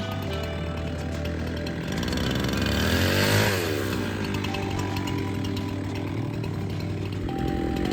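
Chainsaw engine idling between cuts, revved up and back down once about three seconds in.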